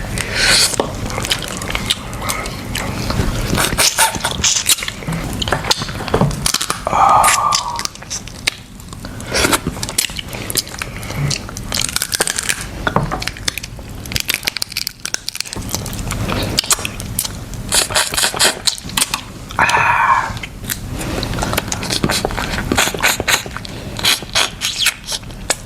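Close-miked eating sounds: crab shell cracking and crunching with many small clicks, and chewing, broken twice by a short, louder scraping rustle.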